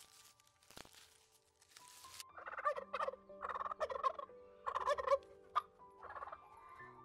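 A flock of domestic turkeys gobbling: a run of several rapid, warbling gobbles that starts about two seconds in, three longer ones and a shorter one near the end.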